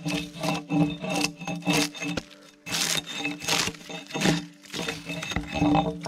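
Background music over repeated scraping strokes on wood, about one a second.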